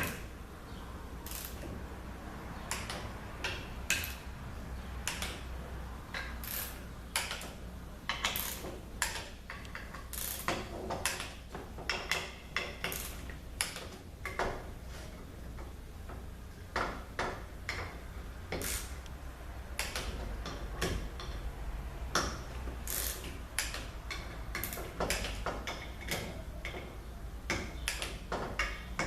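A torque wrench ratcheting on the valve body bolts, in short irregular runs of sharp clicks with brief pauses between.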